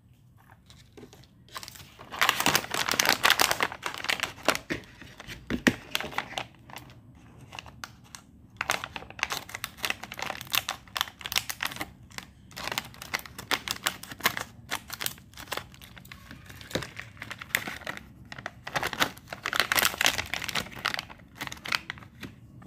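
Plastic candy packet crinkling and crackling as it is squeezed and opened by hand. It comes in dense bursts of crackle with brief pauses, starting a couple of seconds in.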